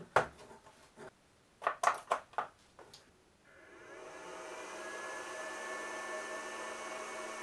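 A few sharp clicks as the charger's clamps and plug are connected. About three and a half seconds in, the cooling fan of a 29.2 V LiFePO4 battery charger spins up and runs with a steady whir, a low hum and a faint whine, as the charger starts working.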